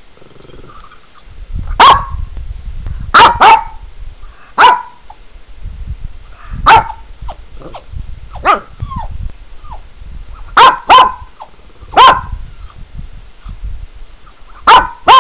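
Pekingese barking: about eleven sharp, loud barks at irregular intervals, some in quick pairs, set off by recorded animal whining played on a laptop. Faint high squeaks repeat between the barks.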